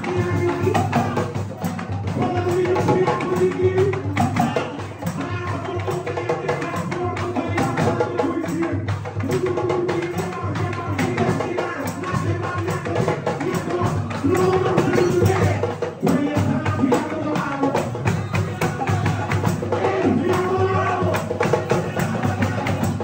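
Live singing over hand percussion, with tambourine jingles and drum strokes keeping a steady, lively rhythm.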